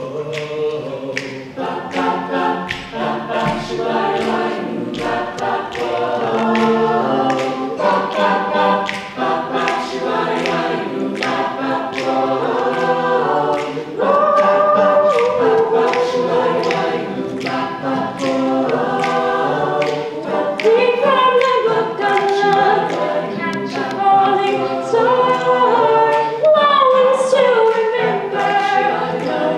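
Stage cast singing together as a choir in several-part harmony, over a steady beat of sharp clicks.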